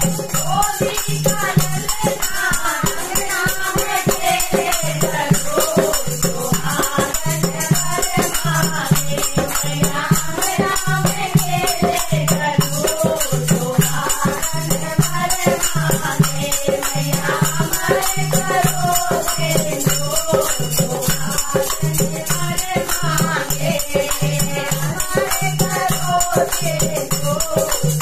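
A group of women singing a Hindi devotional bhajan in unison, with a dholak drum, hand claps and a shaken jingling metal hand percussion instrument keeping a steady, quick rhythm.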